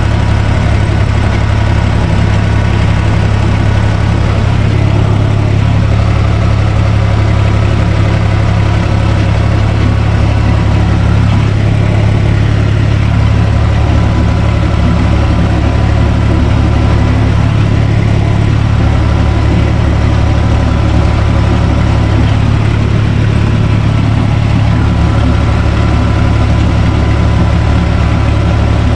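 Universal U445 DT tractor's diesel engine running steadily, heard from inside the cab, while the tractor pulls a rotary tiller through garden soil.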